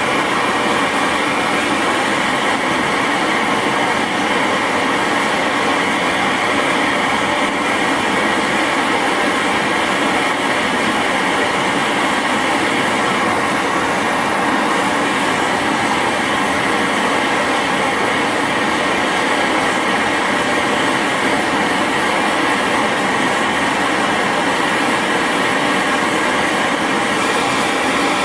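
LPG brazing torch, a MAPP-gas substitute, burning steadily with a constant loud rushing hiss as its flame heats a steel tool blank and carbide tip for brazing with copper wire.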